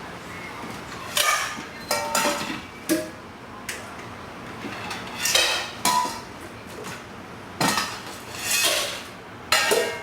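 Dishes clinking and clattering as they are handled and set down: about nine sharp knocks, each with a short ring, spaced irregularly.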